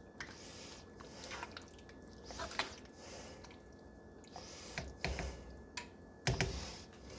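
A spoon stirring thick, wet chili in a large pot: soft squelching strokes about once a second, with a few knocks of the spoon against the pot, the loudest near the end.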